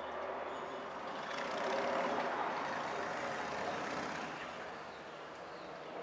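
Street traffic: a large vehicle passing, a broad rushing noise that swells to its loudest about two seconds in and then fades.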